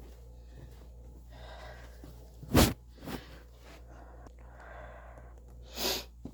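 Soft breaths or sniffs close to the microphone, coming every second or two over a low steady hum, with two short sharp noises, the louder one about two and a half seconds in and a second near the end.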